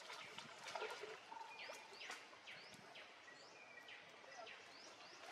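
Faint bird calls: a run of short, high chirps, each falling in pitch, about two a second, over soft outdoor ambience.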